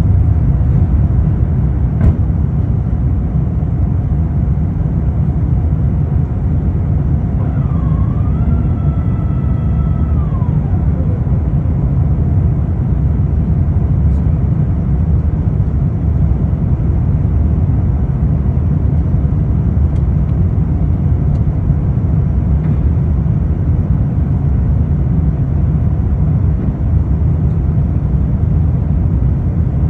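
Steady low roar of airliner cabin noise from the engines and airflow on approach. About eight seconds in, a faint whine dips, levels off and falls away over a few seconds.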